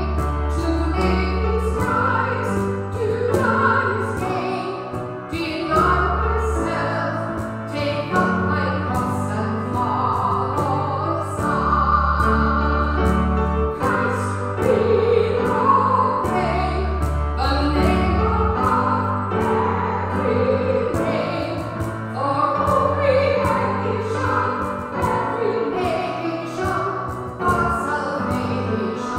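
A woman singing a worship hymn over instrumental accompaniment with long held bass notes.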